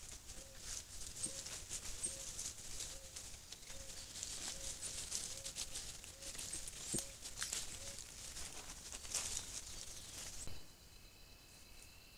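Dry leaf litter rustling and crackling under a South American coati as it forages, with a short, low call repeating about twice a second in the background. Near the end the rustling stops and only a faint, steady high tone is left.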